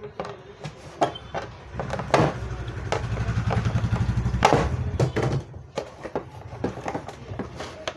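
Pliers clicking and scraping on the last mounting nut and bolt of an RO booster pump as it is loosened against the cabinet's plastic plate, then the nut is turned by hand. A low engine-like rumble swells and fades between about two and five and a half seconds in.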